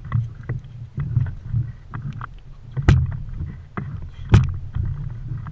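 Water slapping against the hull of a small fishing boat rocking on open swell: irregular sharp knocks, the two loudest about three and four and a half seconds in, over a low steady rumble.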